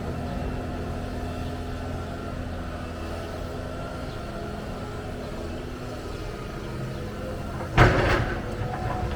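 Excavator diesel engine running steadily. About eight seconds in comes a single loud crash that dies away over half a second.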